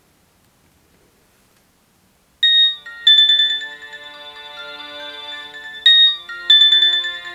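Nokia 6280 mobile phone playing a polyphonic ringtone. After about two seconds of near silence a bright, chiming melody starts, and its opening phrase repeats about three and a half seconds later.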